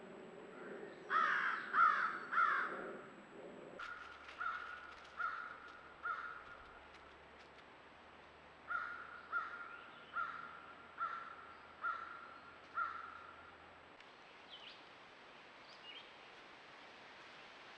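Crows cawing: three loud caws about a second in, then two runs of fainter, evenly spaced caws, four and then seven, a little under a second apart.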